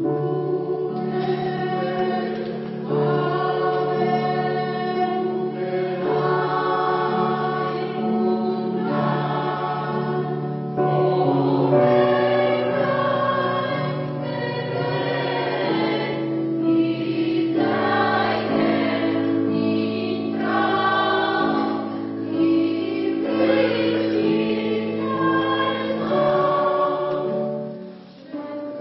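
Polyphonic choir singing in several parts, holding sustained chords that change every second or two. It falls briefly quieter near the end, at a break between phrases.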